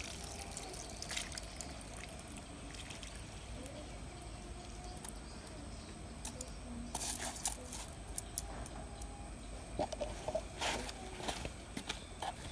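Rinse water poured off washed rice from an aluminium pot, trickling and dripping through the fingers onto wet wooden planks, with a few louder spells in the second half.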